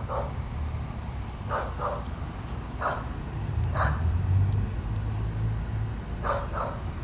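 A dog barking in short single and double barks, about seven in all, over a steady low rumble.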